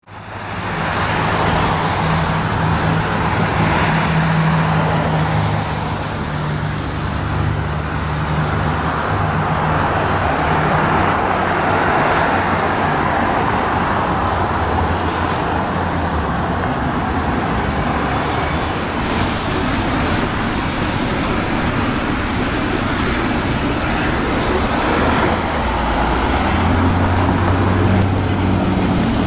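Steady road traffic noise from passing vehicles, with a low engine hum underneath that grows stronger near the end.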